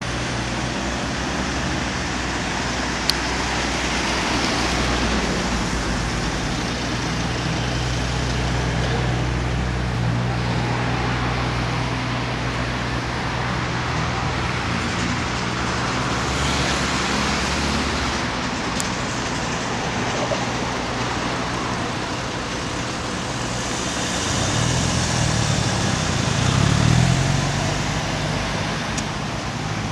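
Street traffic beside a tram line: steady road noise with a vehicle engine running low and even. Near the end the engine's pitch rises as a vehicle pulls away.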